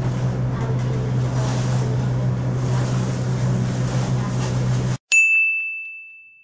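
A steady low hum of background noise for about five seconds, then a sudden cut to silence and a single bell-like ding sound effect that rings out and fades slowly over about two seconds.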